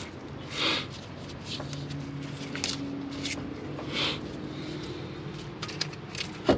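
Hands working on a car's disc brake assembly: rustling and handling noises with a few sharp clicks of metal parts, the sharpest click near the end.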